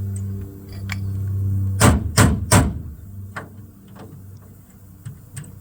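Three sharp metallic riveting hits in quick succession on a bus's lower body panel, setting rivets. They come after a steady low machine hum that drops away as the hits start, and a few light clicks follow.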